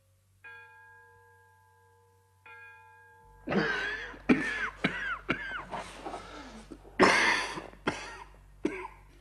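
A bell is struck twice, about two seconds apart, each strike ringing on. Then a man breaks into a violent coughing fit, with harsh coughs and choking gasps in quick succession, the loudest about four and seven seconds in.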